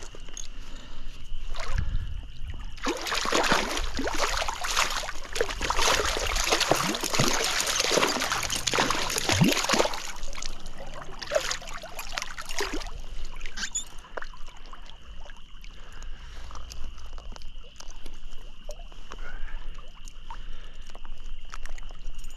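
Water splashing and sloshing as a hooked brown trout thrashes at the surface of a small stream, with the heaviest splashing from about 3 to 10 seconds in, then quieter lapping.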